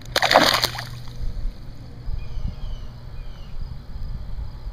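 Small largemouth bass released back into the pond: one short splash at the start, then low outdoor background with faint, repeated high chirps.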